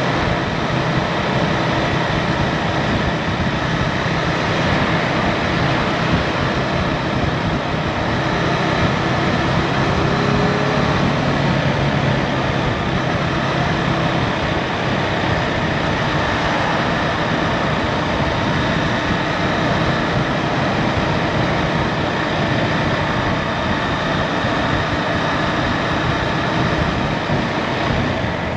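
Husqvarna Svartpilen 401's single-cylinder engine running at a steady cruise, buried in a loud, steady rush of wind noise.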